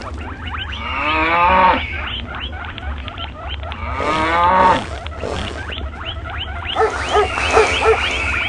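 Stampede sound effect of layered animal calls: two long pitched calls, about a second in and about four seconds in, with a high gliding squeal over them, then a run of short calls near the end.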